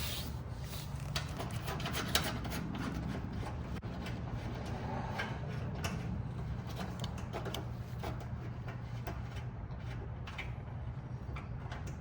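Faint, irregular clicks and rubbing as a bolt is worked out of a truck's plastic rear wheel-well liner by hand, over a steady low hum.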